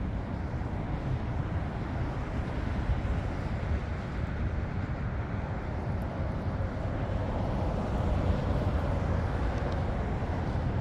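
Steady low rumble of vehicle noise, with no distinct impacts or tones.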